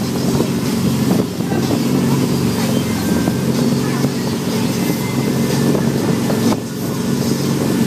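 Wake boat's engine running steadily under way, with the churning wake water behind the stern and wind buffeting the microphone.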